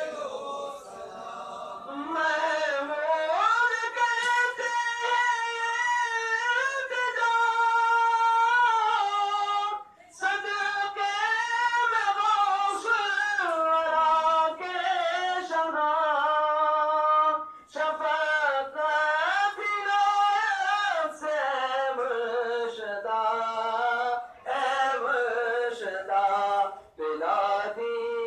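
One voice singing a devotional melody in long, ornamented phrases, each note held and bent, with short pauses between phrases.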